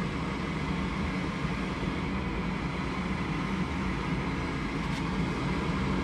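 Gas furnace's induced draft (inducer) motor running steadily with an even hum and rush of air, the pre-purge stage of a heat call before the burners light.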